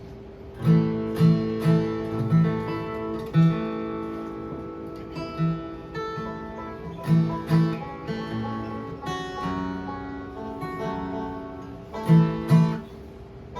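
Acoustic guitar playing live bluegrass, starting about a second in with picked bass-note runs and strums as a new tune kicks off.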